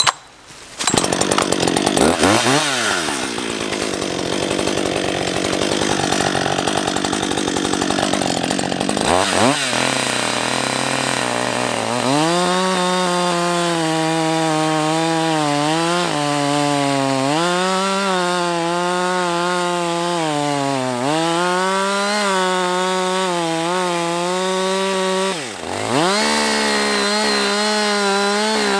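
Chainsaw running at high revs while cutting wood. Its pitch sags under load and climbs back several times, with a brief drop of the throttle near the end.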